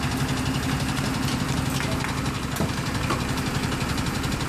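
Fire truck's diesel engine idling steadily, with a couple of faint light knocks in the middle.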